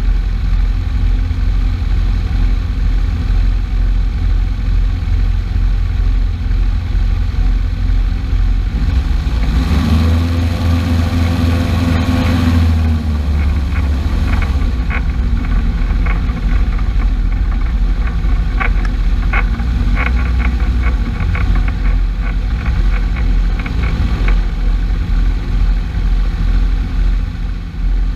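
An engine running steadily, revving up about ten seconds in and settling back down a few seconds later. A run of sharp clicks follows in the middle.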